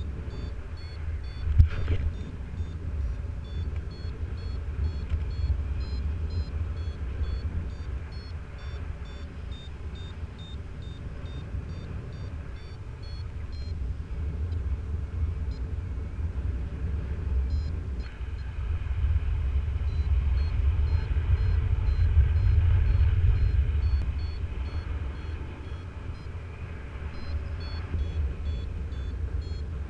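Flight variometer beeping in short high tones that step up and down in pitch, the sign of the glider climbing in lift, over a steady low rumble of wind on the microphone. The beeping thins out midway, and the wind grows louder about two-thirds of the way in.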